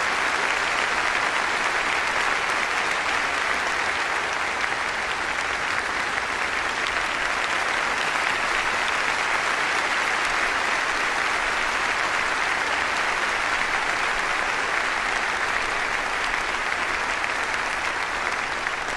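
Sustained applause from a large audience, a dense steady clapping that holds at an even level throughout.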